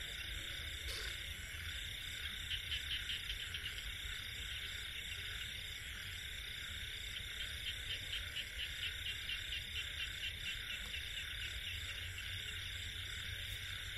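Night chorus of frogs and insects: a steady high-pitched drone, with several runs of rapid pulsed calls a few seconds long.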